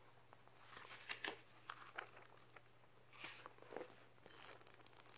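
Faint rustling of a paperback book's pages being flipped, with a few short paper flicks about a second in and again past the three-second mark.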